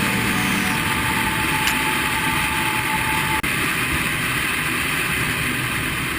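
Steady vehicle or engine noise, with a faint steady tone that cuts off with a click about three and a half seconds in.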